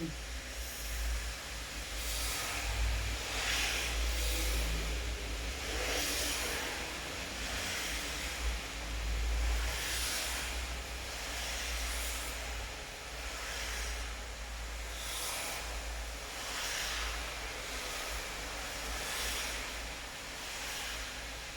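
Rain falling steadily with a constant hiss, swelling louder every second or two over a low rumble.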